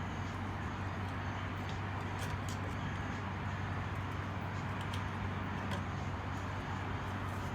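Steady low hum with hiss behind it, and faint scattered clicks of hand tools and metal parts being handled on an old drum brake assembly.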